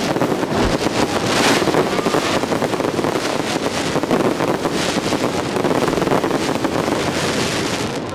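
Dense fireworks barrage: many crackles and bangs merge into one loud continuous rumble, with louder surges about a second and a half in and again near five seconds.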